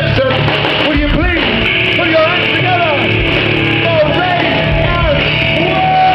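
Rock band playing live, loud and steady, with electric guitar riffs over a rumbling bass.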